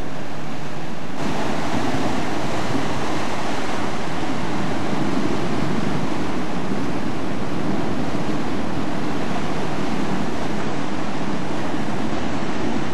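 Steady rushing of wind and sea water, with wind buffeting the microphone; it grows fuller about a second in.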